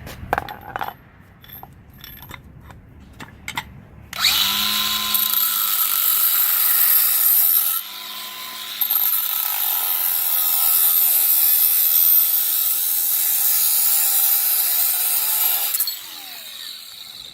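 Power tool cutting through a metal rod: a few clicks and knocks of handling, then the motor starts about four seconds in and runs loud with a harsh, hissing grind, stops for about a second and starts again, and winds down near the end.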